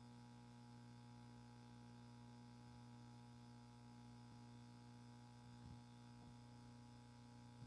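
Near silence: a faint steady electrical hum, with a few faint knocks about six seconds in.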